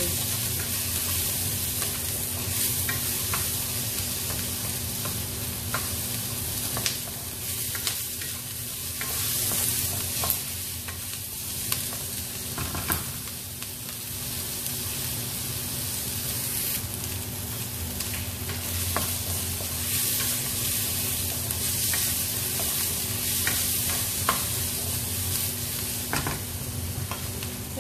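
Chopped onion and bell peppers sizzling steadily in hot oil in a wok, with a wooden spatula scraping and clicking against the pan now and then as they are stirred.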